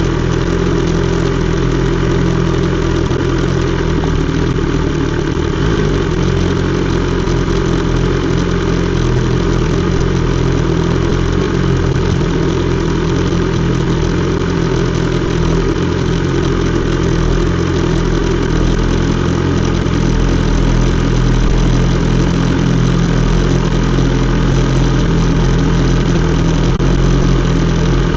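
BMW S 1000 XR's inline-four engine idling steadily through an Akrapovič exhaust.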